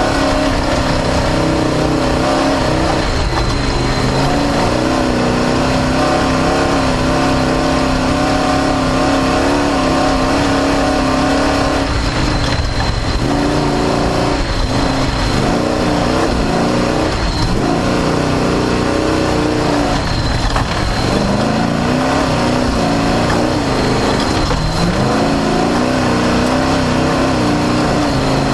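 Off-road desert race car's engine heard onboard at speed: it runs at high, steady revs for about twelve seconds, then revs rise and fall repeatedly over a constant rush of noise.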